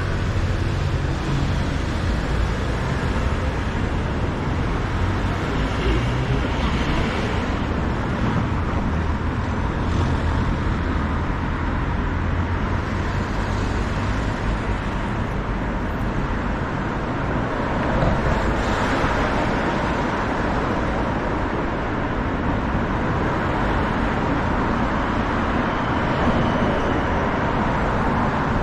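Steady road traffic noise on a busy city street: cars running and passing in a continuous, even din.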